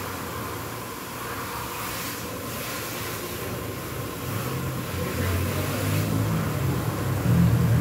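Car wash pressure washer running while water is sprayed on a car: a steady hiss of spray over a low motor hum that grows louder about four seconds in and again near the end.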